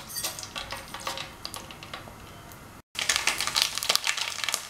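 Mustard seeds crackling and popping in hot oil in an aluminium pan, scattered pops at first. After a cut about three seconds in, denser and louder sizzling and crackling as asafoetida powder fries in the oil.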